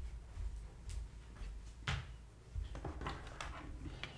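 Faint room tone with a few soft knocks and clicks, the clearest about two seconds in.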